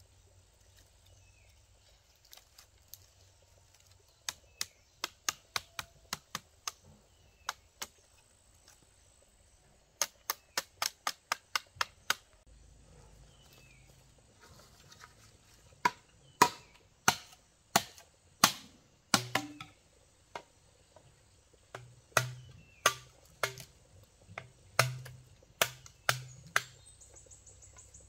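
A machete chopping and trimming bamboo: runs of light, quick clicks in the first half, then heavier sharp blows about one to two a second through the second half.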